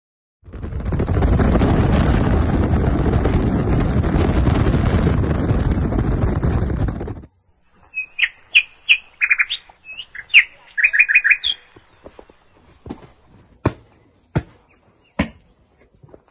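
Loud rushing wind noise inside a moving car with an open window, which cuts off suddenly after about seven seconds. Then birds chirp in quick short calls for a few seconds, followed by footsteps on bare dirt, about one every three-quarters of a second.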